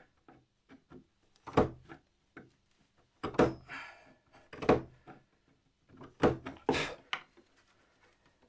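Wood chisel cutting a notch into a timber upright: a series of sharp, irregular knocks with fainter ticks between, about six loud ones.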